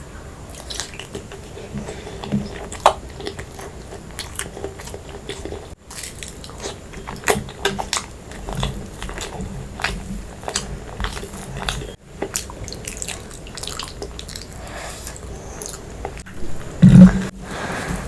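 Close-miked chewing and crunching of food by one person eating, with many short clicks and crackles. A loud low thump comes near the end.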